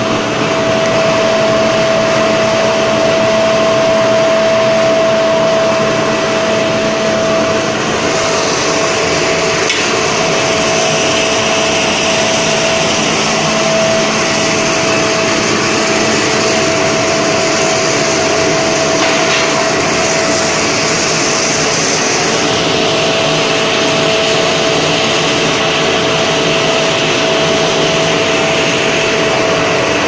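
Air blower of a cupola furnace running steadily: a loud rush of air with a constant whine. A higher hiss joins about a quarter of the way in and eases off about two-thirds through.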